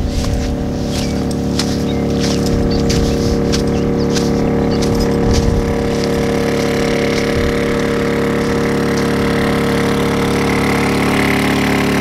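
Champion 2000-watt portable inverter generator running with a steady, even engine hum. Footsteps crunch in the sand through the first half or so.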